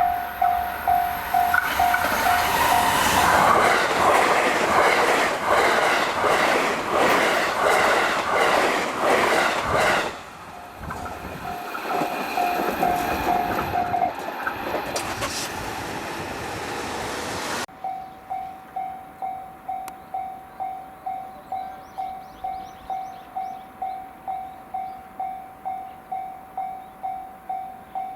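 Japanese railway level-crossing bell ringing with a steady ding about twice a second. A train then passes at speed, its wheels clacking rhythmically over the rail joints. After a sudden cut the crossing bell rings again on its own.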